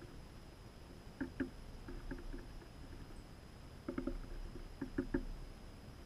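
Soft clicks and knocks in four short clusters from a hanging seed feeder while a northern cardinal feeds on it.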